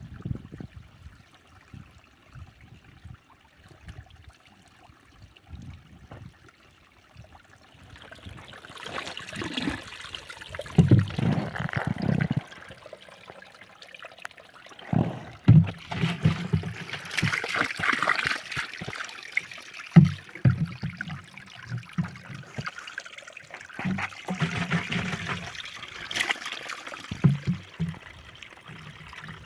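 Water trickling and pouring, starting about eight seconds in, with scattered dull knocks.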